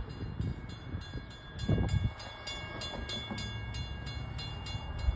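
Level-crossing warning bell ringing in rapid, even strikes, about three to four a second, signalling an approaching train, over an uneven low rumble.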